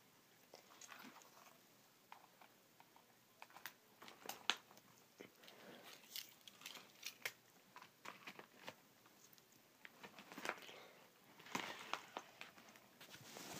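Faint scattered clicks, taps and rustles over near silence, the sharpest tap about four and a half seconds in.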